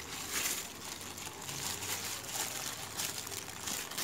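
Clear plastic bag crinkling and rustling irregularly as hands squeeze and shape raw meatball dough inside it.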